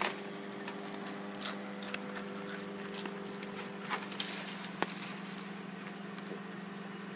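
Microwave oven running with a steady hum, with a few scattered crisp clicks and crunches over it.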